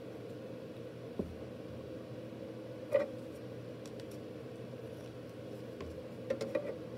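A few light clicks and taps of rigid clear plastic card holders being handled as one card is taken down and the next readied, about a second in, about three seconds in and a quick cluster near the end, over a steady low hum.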